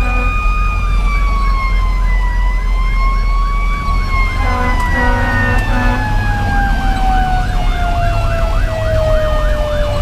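Fire engine's Federal Q2B mechanical siren winding down, its pitch falling slowly, under the fast yelp of an electronic siren, with a few short Grover air-horn blasts about halfway through. Heard from inside the cab over the steady low running of the truck's Detroit Series 60 diesel.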